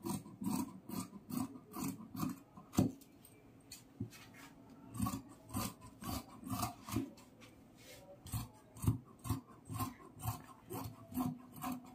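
Fabric shears snipping through velvet cloth on a table: a run of short cutting strokes, about two to three a second, with a couple of brief pauses.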